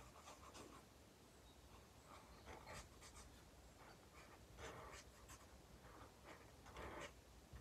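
Faint, irregular scratching of a Promarker alcohol felt-tip marker colouring on paper in short strokes, with a couple of louder strokes about five and seven seconds in.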